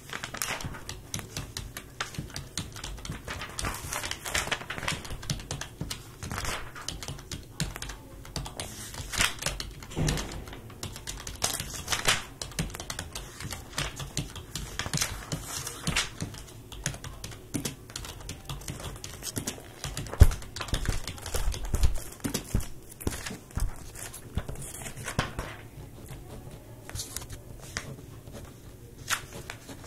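Dense, irregular clicking and tapping, with a few heavier knocks about ten seconds in and again around twenty seconds in; the clicks thin out near the end.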